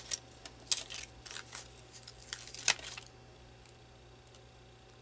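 Small adhesive-backed paper die-cuts being peeled off a clear plastic liner and handled: a run of light clicks and crinkling rustles over about the first three seconds.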